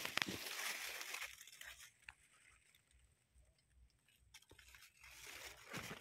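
Rustling and crunching noise with a few sharp clicks for about the first two seconds, then near quiet, with the rustling returning near the end.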